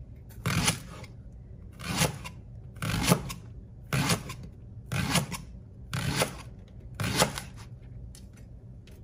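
Chef's knife slicing a leek into rounds on a wooden cutting board: seven even cuts about a second apart, stopping about a second before the end.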